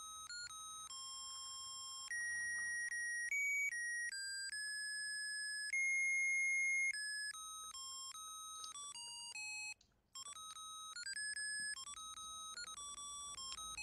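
A simple electronic tune played one beeping note at a time, stepping through a melody like a musical-chip jingle, with a brief break about two-thirds through.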